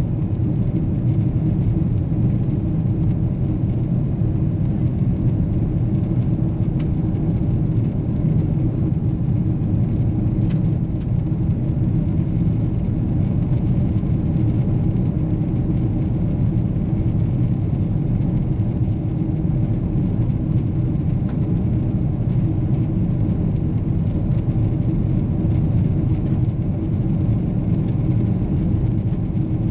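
Steady, unchanging drone of a Boeing 777's engines and rushing air, heard inside the passenger cabin, deepest and strongest in the low range.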